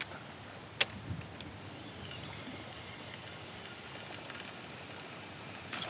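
Soft steady hiss of wind and rippling water around a kayak, with one sharp click about a second in and a fainter one just after.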